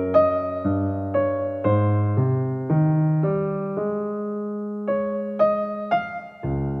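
Soft background music on electric piano: gentle chords and single notes struck about twice a second, with a held low note in the middle.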